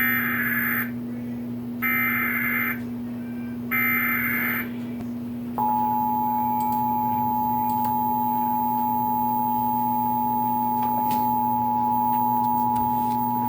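Emergency Alert System tornado warning opening: three roughly one-second bursts of warbling SAME data header tones, with pauses between them. About five and a half seconds in, the two-tone attention signal starts, a steady dual-pitch tone that holds for about eight seconds. A low steady hum runs underneath.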